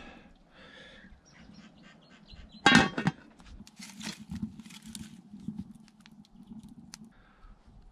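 Firewood being loaded into an Ozpig wood-fired stove. A loud, short, squeaky metal scrape comes about three seconds in, then a run of knocks and clatters as pieces of pohutukawa wood are pushed into the firebox.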